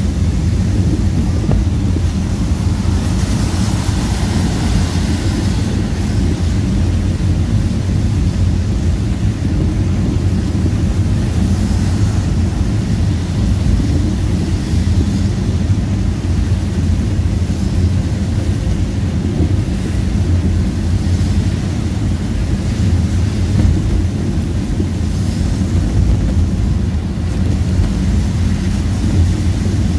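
Steady low rumble of a car driving on a rain-soaked road, heard from inside the cabin, with a hiss of tyres and rain over it. The hiss swells briefly about three to five seconds in.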